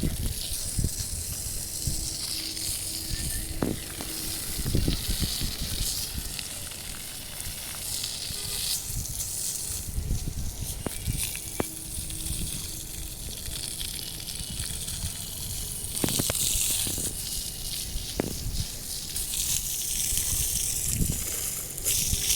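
Water spraying from a hose onto a concrete roof slab being cured: a steady hiss and splash that swells and eases, with an uneven low rumble underneath.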